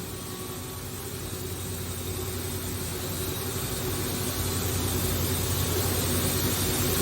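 Okuma & Howa Millac 853PF-5X CNC machining center running under power, a steady mechanical hum with a faint high whine that grows gradually louder.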